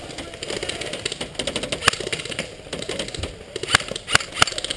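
Airsoft gunfire: sharp, irregular shot clicks from several guns, with a cluster of louder shots near the end.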